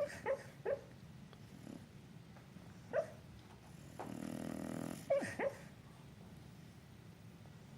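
Sleeping bulldog dreaming: short muffled yips and whimpers, three near the start, one about three seconds in and two more just after five seconds. Between them, about four seconds in, comes a buzzing, second-long snore.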